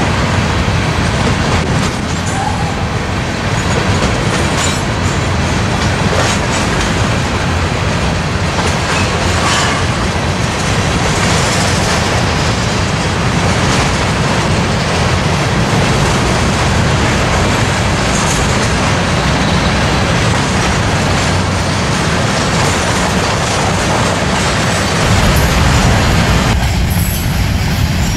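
Freight train of covered hopper cars rolling past: a steady, loud rumble of steel wheels on rail with scattered clacks. Near the end the sound turns deeper.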